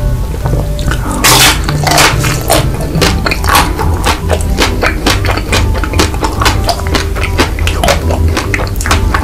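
Close-miked biting and chewing of a chocolate-coated ice cream bar: one loud bite about a second in, then a run of sharp crunches and mouth sounds as the chocolate shell breaks.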